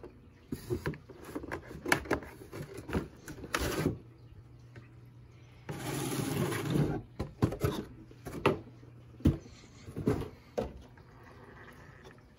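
Unboxing handling noises: cardboard box and plastic packaging knocking, crackling and scraping as the RC car is taken out, with a longer scraping rustle about six seconds in and a few sharp knocks after it.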